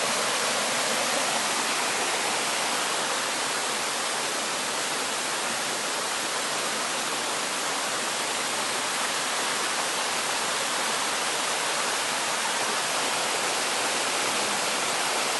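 Mountain stream water rushing steadily over rocks, a constant even hiss of flowing water.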